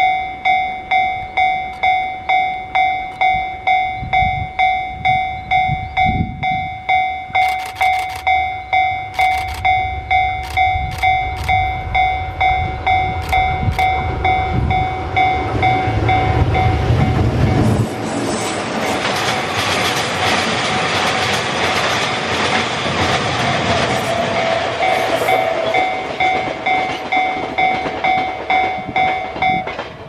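Japanese level-crossing warning bell ringing about twice a second. About sixteen seconds in, a JR Freight EH500 electric locomotive passes with a train of tank wagons: a heavy low rumble, then the wagons' wheels rushing and clacking over the rail joints while the bell keeps ringing. Near the end the bell stops.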